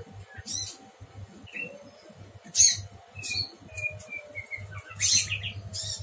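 Caged prenjak, a small warbler-type songbird, giving short high chirps and squeaky call notes, a few each second. The loudest come about two and a half and five seconds in, over a faint low hum.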